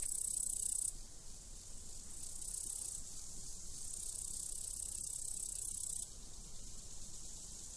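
Crickets chirping in a continuous high-pitched trill that swells and fades in stretches of one to three seconds.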